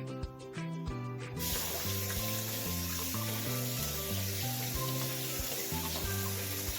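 Water running from a tap into a sink, a steady hiss that starts about a second and a half in, under background music with a stepping bass line.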